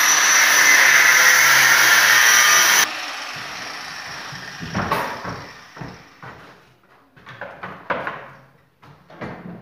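Angle grinder cutting a steel heating pipe, a loud steady high grinding with a whine, switched off about three seconds in and spinning down. After that come scattered short knocks and clanks of metal being handled.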